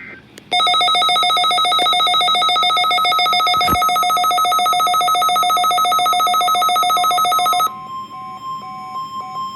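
Emergency alert test tones: a loud, rapidly pulsing electronic alarm buzz that cuts off about seven and a half seconds in, leaving a quieter steady weather-radio alert tone with short intermittent beeps.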